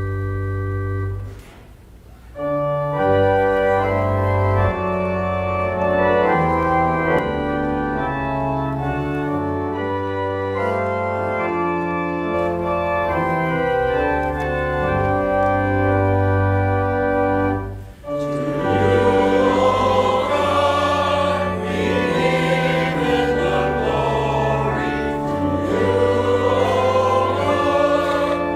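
Church organ playing sustained chords, with a short break about two seconds in; about two-thirds of the way through, a choir begins singing over the organ.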